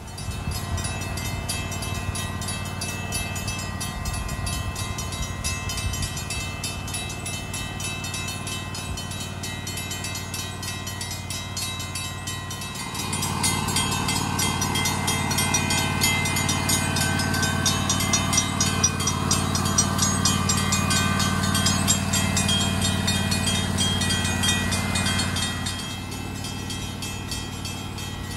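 A 7.25-inch gauge miniature Union Pacific diesel train running on its track over a rapid, steady clicking. It grows louder about halfway through as it comes close, and drops off a few seconds before the end.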